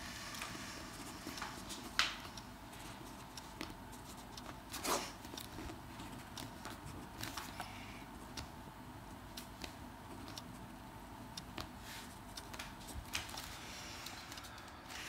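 Pen on notebook paper: faint scratching, small clicks and page rustles over quiet room tone, with a sharper click about two seconds in and a brief rustle near five seconds.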